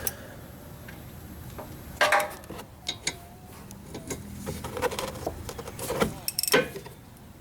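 Metal hand tools and brake parts clinking and clattering as they are handled, in irregular knocks and clicks with the loudest clatter about two seconds in and again around six seconds in.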